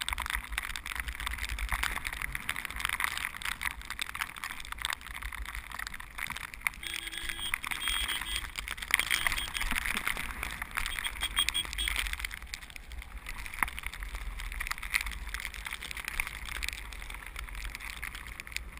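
Steady rushing wind and motion noise on a moving action camera, with many small clicks and scrapes and a low rumble, as it travels fast down a snow-covered road.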